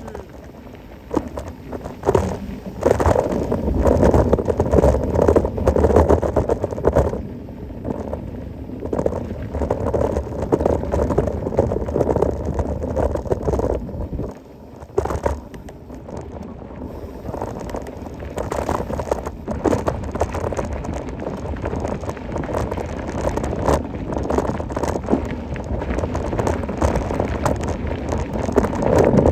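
Mountain bike riding fast down a rough dirt trail: tyres rolling and crunching over the ground, with the bike rattling and clattering over bumps. The noise swells a couple of seconds in and dips briefly about halfway through.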